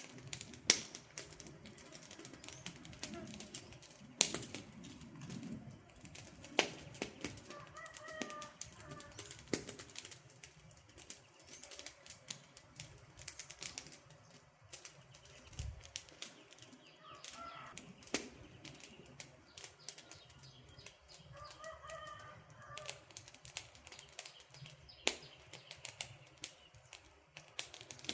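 Wood campfire crackling and popping, irregular sharp snaps of varying loudness. A bird calls briefly three times in the background.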